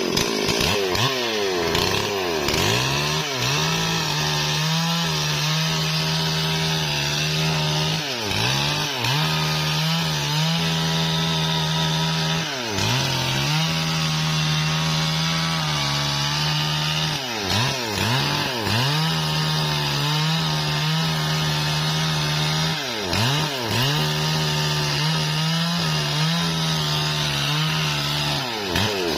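Stihl MS440 two-stroke chainsaw running at high revs while cutting wood. The engine note dips and recovers about ten times, each time for a moment.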